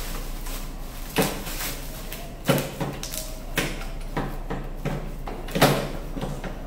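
Plastic bubble wrap crinkling and rustling as the folding steel handle of a Makita petrol lawnmower is lifted. There are several sharp knocks and clunks from the handle frame, the loudest near the end.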